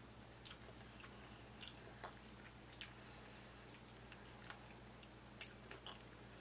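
Faint mouth sounds of someone sucking a hard orange-slice candy: irregular small clicks and smacks, roughly one a second, as the candy knocks against the teeth and tongue while it melts.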